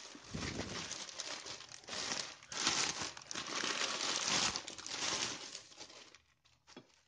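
A plastic freezer bag crinkling and rustling as a stack of frozen parathas layered in butter paper is handled. It goes on for about six seconds, then dies down to a few faint ticks.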